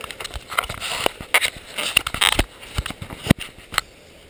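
Handling noise from a GoPro action camera in its plastic housing being fitted and adjusted by hand: irregular clicks, knocks and rubbing, with one sharp knock about three seconds in.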